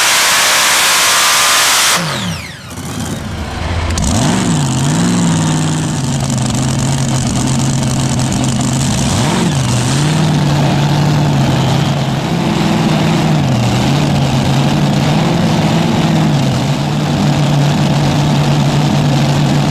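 A pulling tractor's engine at full power stops abruptly about two seconds in, winding down with a falling whine. From about four seconds an engine idles, its pitch rising and falling a little with light revs.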